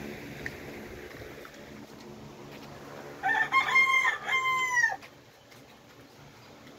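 A rooster crowing once, about three seconds in: a few short broken notes, then a long held note that drops in pitch at the end.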